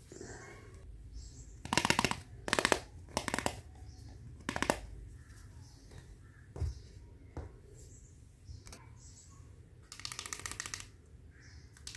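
Small plastic toy kitchen pieces clattering and rattling as they are picked up and handled: a few short rattling bursts in the first five seconds, then a longer one about ten seconds in.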